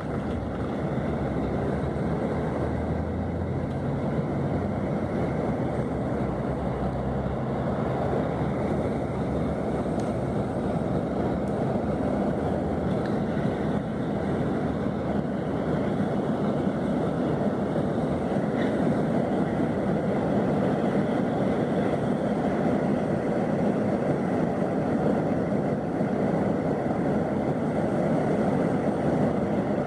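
Scania K400 coach engine running steadily, a dense low rumble that grows slightly louder in the second half.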